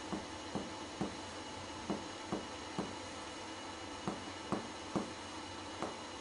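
Finger-on-finger percussion of a patient's chest over the lungs: short dull knocks, mostly in pairs about half a second apart, as the striking middle finger taps the pleximeter finger pressed to the chest wall. This is comparative percussion, matching the same spot on the left and right sides; the doctor finds a clear pulmonary note over both lungs.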